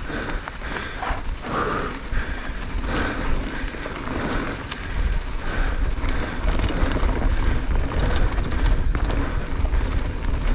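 Mountain bike riding fast down a dirt singletrack: a low wind rumble on the microphone, heavier from about halfway, over tyre noise on the dirt and a constant rattle of small clicks and knocks from the bike jolting over the rough trail.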